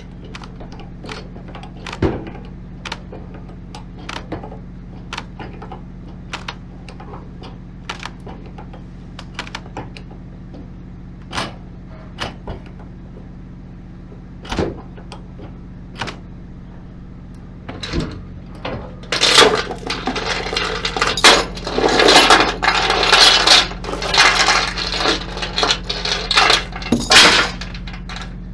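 Steel tie-down chain and lever binder clinking as they are handled: scattered single clinks, then, about two-thirds of the way in, some eight seconds of dense jangling and clanking. A steady low hum runs underneath.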